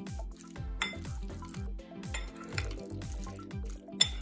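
Background music with a steady beat of deep falling bass notes, about three a second. A metal fork clinks against a mixing bowl while stirring raw chicken tenders, sharply about a second in and again near the end.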